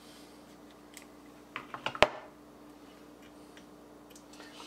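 A short run of small clicks ending in one sharp snap about two seconds in: a folding hex key set being handled and its keys clicked.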